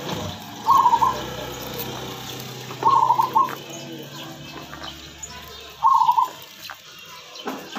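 A bird's short call, repeated three times at about three-second intervals.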